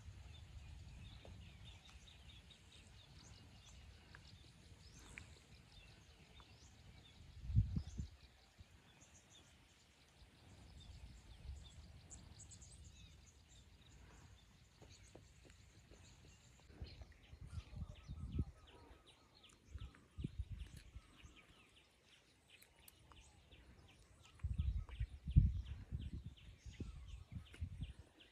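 Outdoor lakeside ambience: small birds chirping and twittering over intermittent low rumbles and thumps. The loudest thumps come about a quarter of the way in and again near the end.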